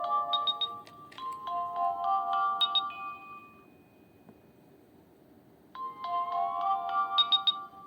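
Nokia 2660 mobile phone ringtone playing: a synthesized melody of held and gliding notes over light percussion. It drops out for about two seconds midway, then the melody resumes.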